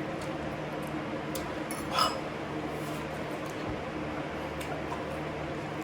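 A single short clink of cutlery or dishware about two seconds in, with a few faint ticks, over a steady mechanical hum from a fan or air conditioner.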